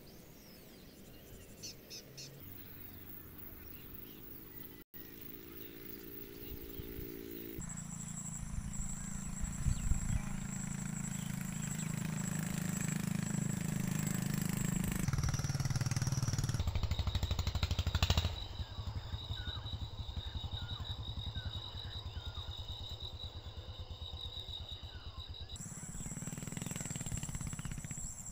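Small engine running with a rapid, even pulsing beat, loudest in the middle stretch. The sound changes abruptly several times.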